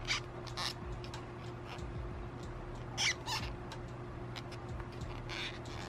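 Faint clicks and rustles of a metal crochet hook and fingers pulling yarn through stitches while working a single-crochet decrease, over a steady low hum.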